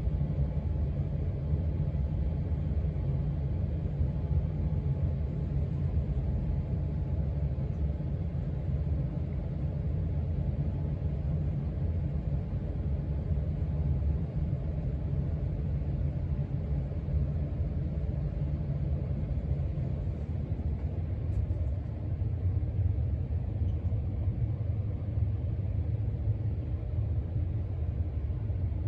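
Casablanca Panama II ceiling fan running, heard as a steady low rumble.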